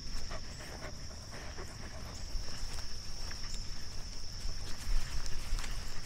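A steady, high-pitched insect chorus drones throughout, over a low rumble and scattered ticks and knocks that grow louder near the end.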